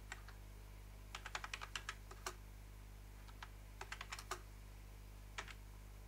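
Typing on a computer keyboard: a quick run of keystrokes about a second in, a few scattered presses, a second quick run around four seconds in, then a single keypress near the end.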